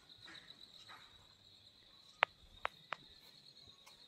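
Crickets chirping in a steady, high, rapidly pulsing trill, with three sharp clicks a little past halfway.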